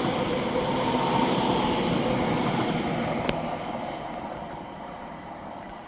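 Two coupled Class 720 electric multiple units passing, a steady rumble of wheels and running gear with a faint steady whine, fading away as the train recedes.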